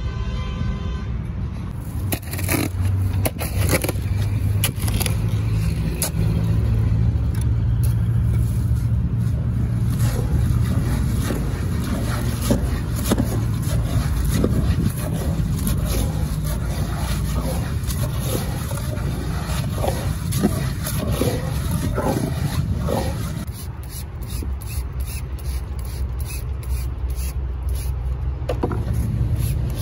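Shovel and hand scoop scraping through gravel and wet, red-tinted cement slurry in repeated strokes while the mix is stirred, over a steady low rumble. Near the end come quicker, lighter strokes.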